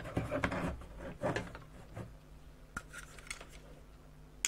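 Handling noise of a mains plug and its cord being held while a meter probe is set against a plug pin: rubbing and scraping for the first couple of seconds, then a few light clicks.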